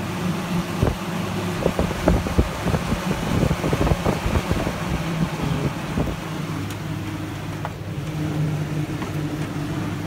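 Galaxy 12-inch box fan running on high: a steady motor hum with air rushing through the blades. Irregular low thumps break in over the first six seconds or so.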